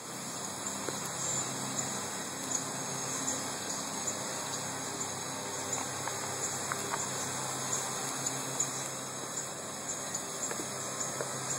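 Steady low hum and water rush of a pool pump, with short high chirps repeating about twice a second over it.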